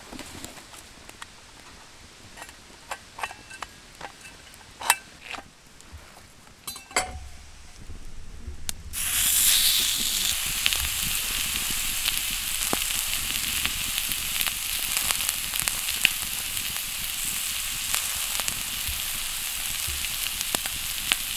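A thick piece of meat sizzling in a Fujita Kinzoku 'Frying Pan Jiu' iron frying pan over a campfire. A few sharp clicks come first, then about nine seconds in the meat goes into the hot pan and a steady sizzle starts suddenly and keeps going.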